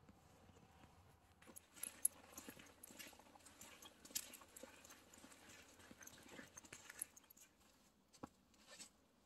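Faint footsteps of hikers walking along a sandy trail strewn with pine needles and dry leaves, an uneven series of soft crunching steps starting about a second and a half in.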